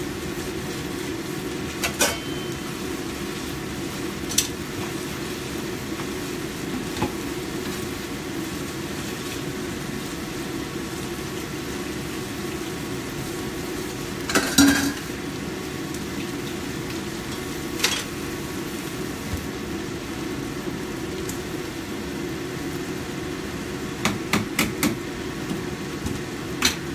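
Chicken wings and onions frying in a pan with a steady sizzle, overlaid by scattered clinks and knocks of dishes being handled and washed, the loudest clatter about halfway through and a quick run of clinks near the end.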